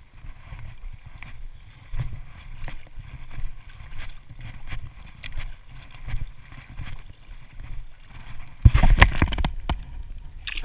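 A fish being released back into shallow water: a brief, loud splash about nine seconds in as it is lowered in and kicks free. Before it, a steady low rumble with small scattered clicks of handling.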